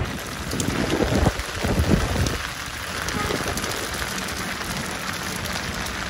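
Heavy rain falling: a dense, steady hiss, with a few low thumps in the first two seconds or so.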